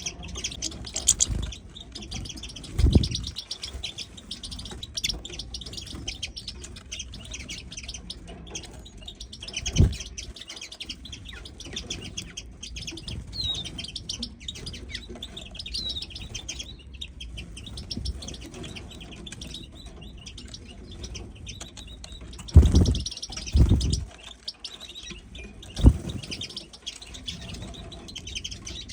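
A group of small songbirds chirping and twittering continuously, many short high calls overlapping. A few dull low thumps come through, two of them close together near the end.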